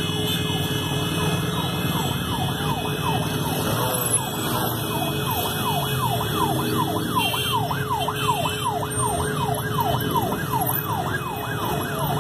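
Police vehicle siren sweeping up and down, slower at first and then a fast yelp of about two sweeps a second from about halfway on, over a steady engine rumble.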